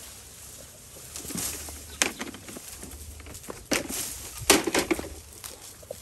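Dry bamboo leaves and stems rustling and crackling in a few sharp spells, loudest about four and a half seconds in.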